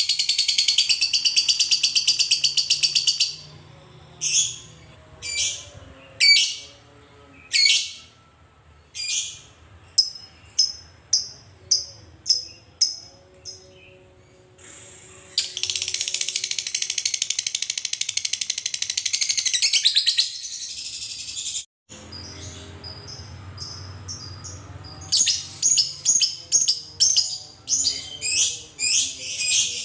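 Fischer's lovebird giving its 'ngekek', a fast, unbroken chattering trill lasting several seconds. It comes twice, with rows of short, separate sharp chirps between the trills and after them.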